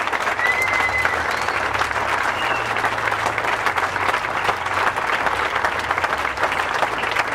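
Crowd applauding, steady sustained clapping.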